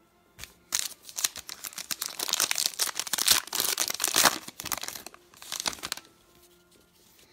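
Plastic trading-card pack wrapper being torn open and crumpled by hand: a run of crinkling and tearing that starts about a second in and stops about a second before the end.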